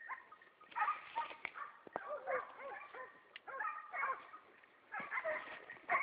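Several hunting dogs yelping and barking in a run of short, repeated cries, faint in the brush.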